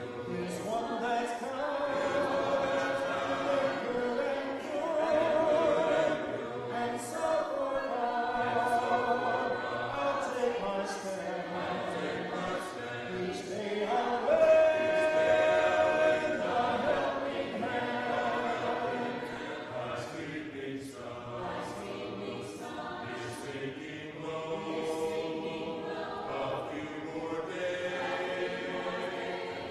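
Congregation singing a hymn a cappella, many voices together without instruments.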